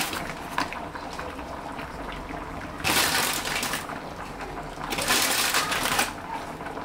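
Steamed snapper simmering in a frying pan of liquid, with three louder noisy bursts of about a second each as crackers are handled and laid on top.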